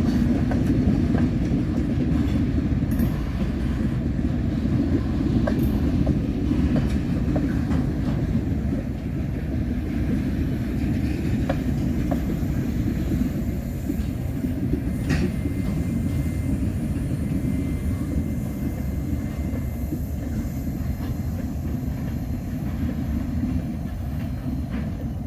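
CN freight train rolling past: a steady low rumble of steel wheels on rail with scattered clicks as wheels cross rail joints, slowly easing in level.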